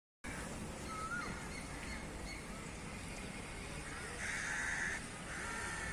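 Wild birds calling in the early morning: short thin chirps in the first few seconds, then a louder harsh, rasping call about four seconds in and another near the end.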